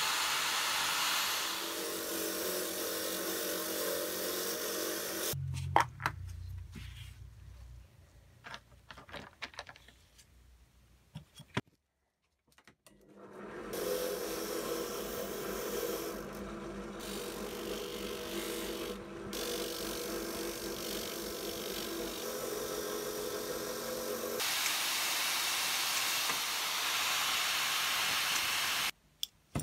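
Power tools abrading small steel pump parts. A handheld rotary tool runs with a small abrasive bit, stops after about five seconds and spins down, and a few light knocks follow. Then a drill press runs an abrasive wheel against a small part held by hand, and near the end the rotary tool runs again.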